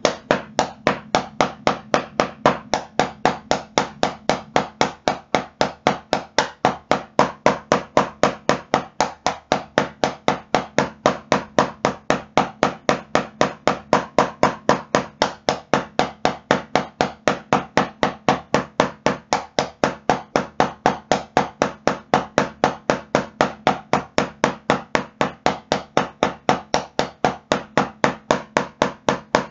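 Drumsticks striking a rubber drum practice pad in a steady, even stream of single strokes at a constant tempo. The strokes alternate hands in groups (8 right, 8 left, 16 right, 8 left, 8 right, 16 left), a single-stroke exercise for control.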